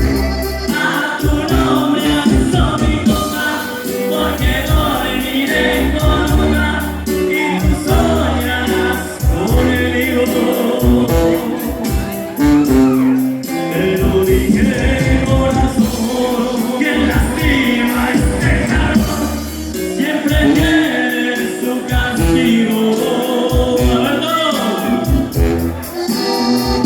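Norteño-banda music playing: a passage with no transcribed lyrics, carried by melodic instrument lines over a bass that pulses in regular notes.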